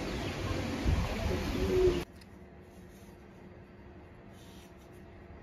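Outdoor street ambience, a steady rush, with a dove cooing briefly, cut off abruptly about two seconds in to quiet room tone.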